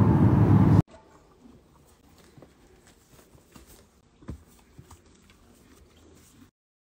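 Steady car road noise inside the cabin, cut off abruptly under a second in. After it come faint scattered clicks and rustles with one louder tap about four seconds in, then dead silence near the end.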